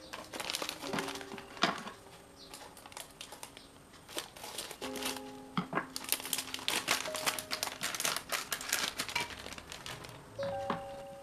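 Plastic packet of spring roll wrappers crinkling as it is handled, opened and the wrappers pulled out, the crinkling densest from about six to nine seconds in. Soft background music with held notes plays underneath.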